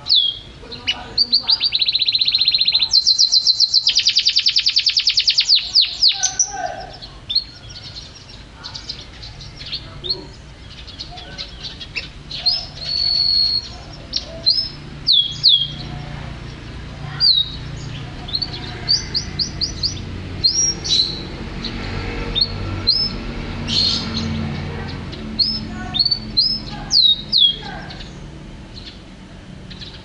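Yellow canary singing: a loud, fast trill in the first few seconds, then a string of separate sharp chirps and short falling whistles.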